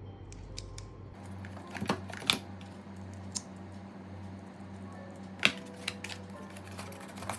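Hands unpacking a smartphone box: about six sharp clicks and taps of cardboard and plastic being handled, over a steady low hum.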